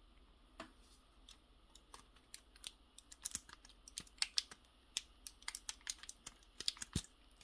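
Hard plastic parts of a Kotobukiya HMM Zoids Liger Zero Empire model kit clicking and snapping under the fingers as pieces are fitted and moved. An irregular run of light clicks, sparse at first and coming thick and fast from about two and a half seconds in.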